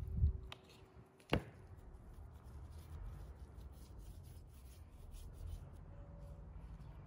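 Hands dividing and rolling soft dough on a board, with a low thump near the start and one sharp tap, the loudest sound, just over a second in.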